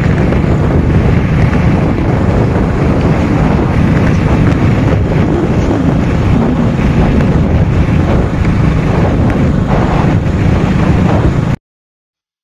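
Loud, steady wind rush buffeting the microphone of a motorcycle under way, the Super Splendor's running blended into it. The sound cuts off abruptly into silence near the end.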